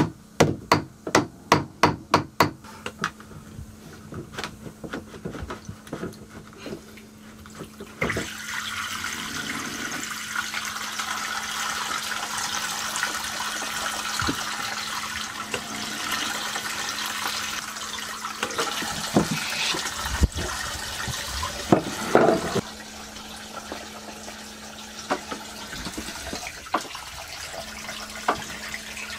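Seawater gushing into the boat through a seacock opened up below the waterline, a steady rushing that starts about a quarter of the way in and falls quieter about three-quarters of the way through, with a few knocks from hands and tools on the fitting. It opens with a quick run of sharp clicks and taps.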